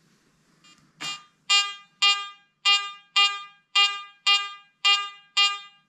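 Garrett AT Gold metal detector giving a repeated target tone: eight short, identical beeps, about two a second, as a gold medal is swept back and forth over its coil. A soft knock comes just before the beeps start.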